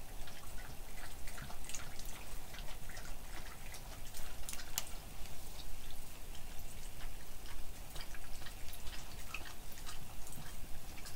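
Samoyed lapping water from the small cup of a squeeze travel water bottle: a run of quick, irregular wet laps and tongue clicks.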